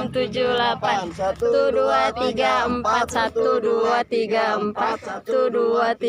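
A group of voices chanting a count together in unison, in a steady rhythm of short shouted syllables, keeping time for a warm-up exercise.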